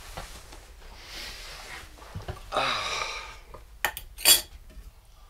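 A metal utensil scrapes and clinks against an enamel cooking pot as food is dished up, with soft scraping followed by a few sharp clicks and one loud ringing clink about four seconds in.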